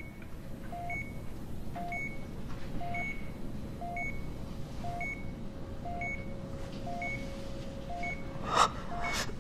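Hospital patient monitor beeping steadily, a short beep about once a second, over a faint steady tone. Two brief rustling sounds come near the end.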